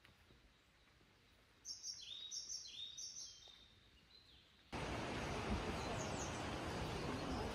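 A songbird sings a quick run of high chirping notes over a quiet background. About five seconds in, the sound cuts abruptly to a steady, louder rushing outdoor noise.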